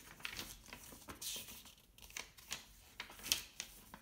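Paper instruction manual pages being turned and handled, with irregular rustles and crackles of the sheets, a longer swish of a page a little after a second in, and a sharper crackle past the three-second mark.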